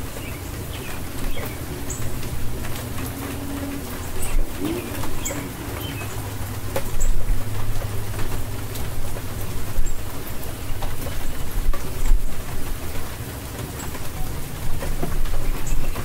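Steady rainfall with a low rumble underneath, birds chirping briefly here and there, and a pigeon or dove cooing once about five seconds in.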